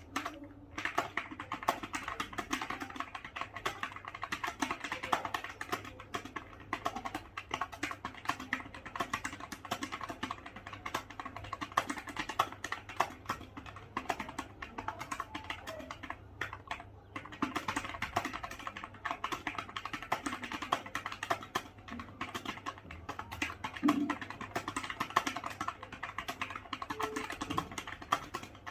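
Fast, continuous typing on a computer keyboard, a rapid stream of key clicks with a brief pause a little past halfway.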